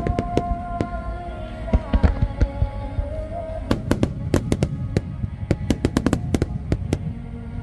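Aerial firework shells bursting in a rapid barrage of sharp bangs, thickest in the second half, over music playing throughout.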